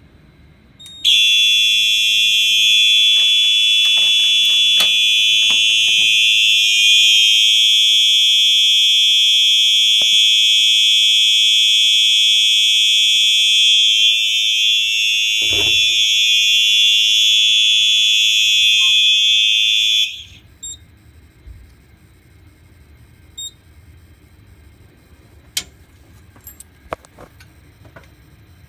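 Simplex 4903-9242 electronic horn strobe sounding a loud, steady continuous horn tone. It starts about a second in and cuts off suddenly after about nineteen seconds, leaving only a few faint clicks.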